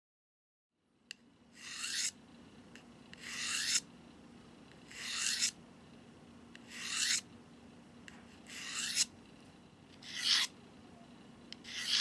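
A steel knife blade drawn repeatedly through a Victorinox pocket knife sharpener with a rasping, scraping sound. There are seven even strokes about every second and a half, each growing louder and ending sharply as the blade leaves the slot.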